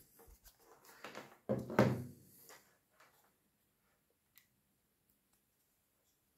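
Handling noise of a power adapter and its cable: a few knocks and scrapes in the first two seconds, then isolated faint clicks, one a little after four seconds as the USB-C plug goes into the soldering pen.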